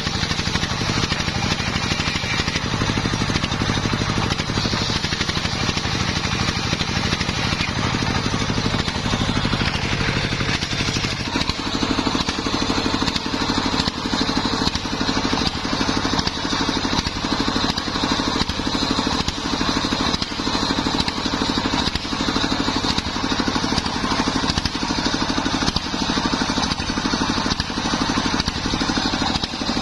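Homemade circular sawmill cutting through a waru wood board for about the first eleven seconds, then the blade spinning free while the engine driving it keeps running with an even, repeating thump.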